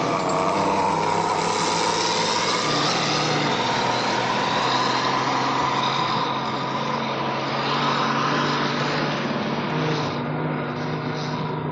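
Motor vehicle engines running steadily, a low hum with a higher whine over it.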